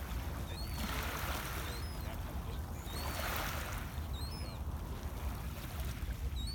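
Small lake waves lapping and washing onto a pebble shore, a wash about every two seconds, with small birds giving short high chirps and a low steady rumble underneath.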